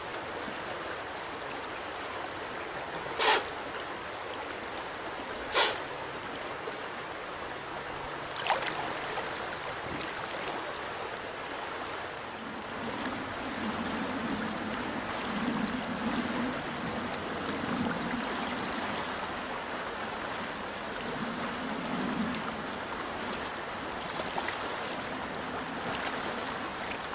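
Fast, shallow trout stream running over rocks: a steady rush of flowing water. Two sharp clicks cut through it about three and five and a half seconds in, with a fainter one a few seconds later.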